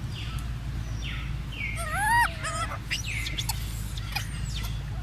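A monkey giving short, high calls that rise and fall in pitch, the loudest about two seconds in, with scratchy noises between them.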